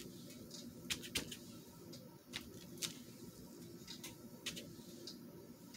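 Light, irregular taps and clicks of a wood-mounted rubber stamp being dabbed on an ink pad and pressed onto paper, over a faint steady hum.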